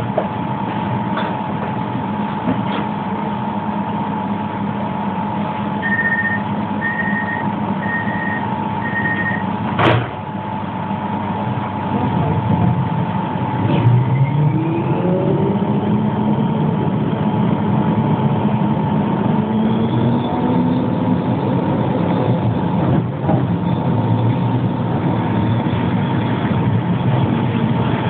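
Inside a Pesa 120Na low-floor tram: over a steady hum, four short door-warning beeps sound, then a sharp clack as the doors shut. A few seconds later the traction drive whines, rising in pitch as the tram pulls away from the stop.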